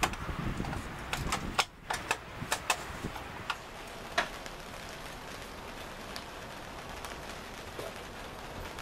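Light metallic clicks and knocks from hand work on an engine hanging from an engine hoist in the car's engine bay, about a dozen sharp ones over the first three seconds. After that there is only steady background hiss.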